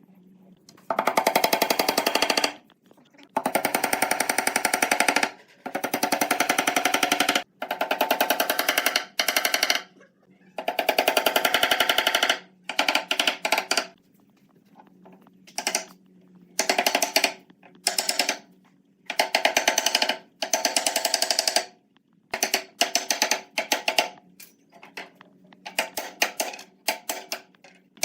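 A power tool with a rapid hammering action, run in repeated bursts of one to two seconds with short pauses between them. The bursts become shorter and choppier near the end.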